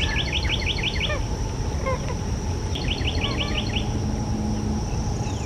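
A songbird singing a short phrase of about eight quick repeated, slurred notes, repeated every two to three seconds, over a steady high insect drone.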